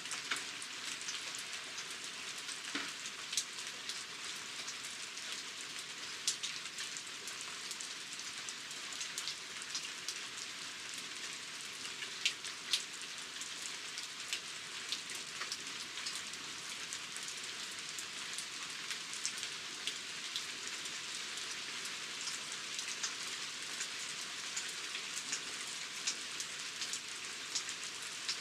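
Steady rain falling, a constant hiss with many individual drops ticking sharply on a hard surface.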